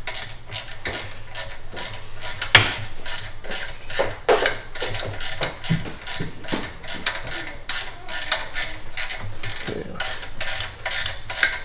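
Hand ratchet wrench clicking steadily, about four clicks a second, as the air tube's flange bolts are run down onto the exhaust header, with a few louder knocks of tool on metal.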